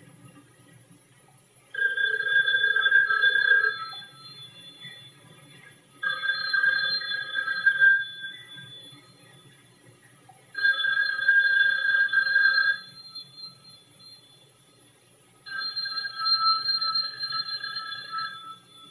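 Light-blue rotary-dial desk telephone's bell ringing four times, each ring about two seconds long with a pause of about two and a half seconds between. Nobody answers it.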